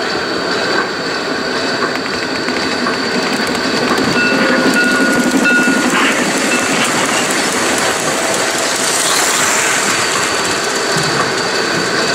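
1:32-scale model train rolling past on its track, its wheels clicking over the rail joints, against the hum of a busy hall.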